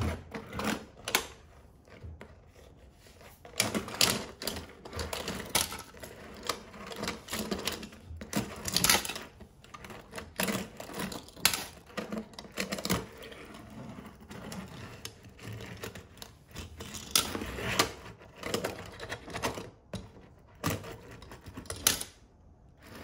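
Diecast toy cars rolling on a wooden tabletop and clacking against one another in a long run of irregular clicks and knocks.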